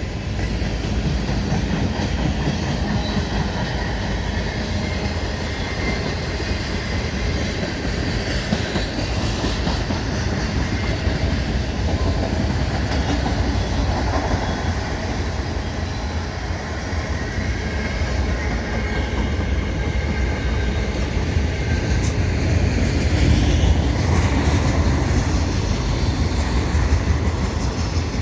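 Long freight train passing at speed: a steady rumble with the clatter of wheels on the rails, getting a little louder about twenty-two seconds in.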